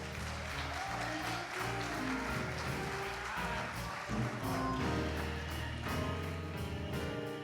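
Church instrumental music with sustained bass notes, with hand clapping over it in the first half.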